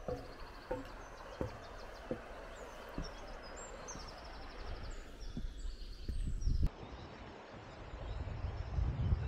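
Footsteps on a wooden footbridge's planks, about one every 0.7 s for the first three seconds, over a steady rush of river water, with birds chirping. A low rumble takes over after about seven seconds.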